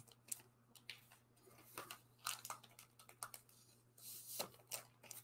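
Faint rustling and crinkling of comic books in plastic bags and backing boards being handled, in short scattered bits, over a low steady electrical hum.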